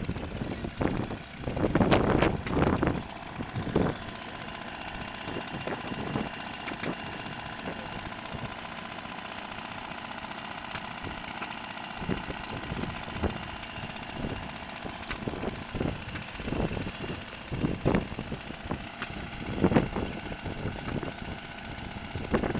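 Small vintage stationary engine running at a steady speed. Irregular low thumps hit the microphone, loudest a couple of seconds in and again near the end.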